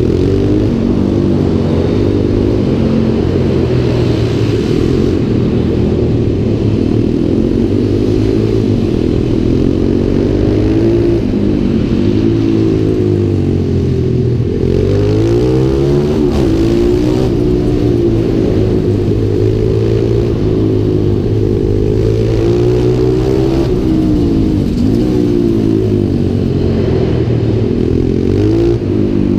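Small single-cylinder engine lapping a tight track, revving up out of each corner and dropping back for the next, so its pitch rises and falls every few seconds.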